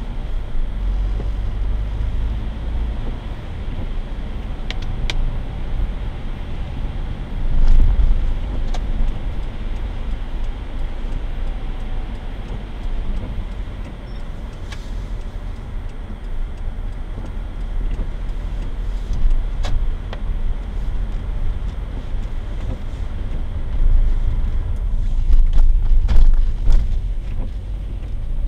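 A car driving on a wet road, heard from inside the cabin: a steady low engine and road rumble with tyre hiss. It swells louder twice, once about a quarter of the way in and again near the end, with a few sharp clicks scattered through.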